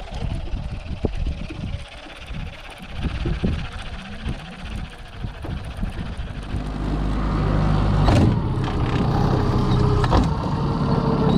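At first an irregular low rumble with a few knocks. From about six and a half seconds in, a small outboard motor on an aluminium boat runs steadily at a constant pitch, louder than what came before.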